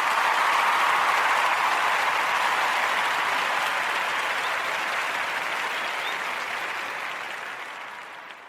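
Crowd applause, an even wash of clapping that slowly fades out near the end.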